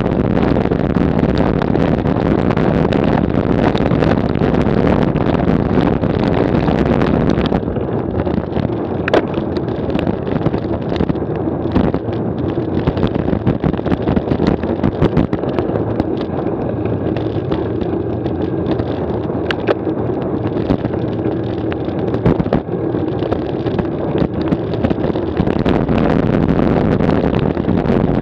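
Road bike juddering and rattling hard over cobblestones, with many knocks and wind on the microphone. About seven seconds in the rattle eases onto smoother road, leaving wind noise and occasional knocks. Near the end it grows louder again on rough broken cobbles.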